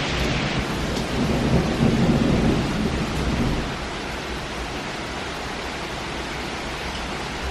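Thunderstorm: thunder rumbling over steady rain, the rumble dying away about halfway through and leaving an even hiss of rain.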